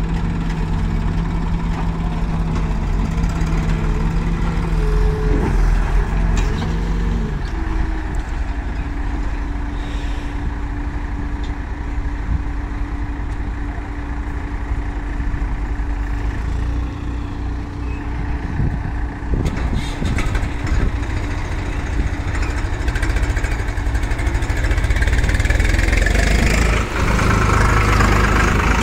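Diesel engines of a backhoe loader and a tractor running steadily, the engine note shifting a couple of times as the machines work. Near the end a Swaraj 735 XT tractor's engine runs loud and close.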